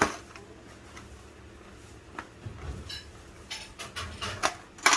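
Scattered light clicks, taps and knocks of a box and its contents being handled and opened, with a sharper click right at the start and another just before the end.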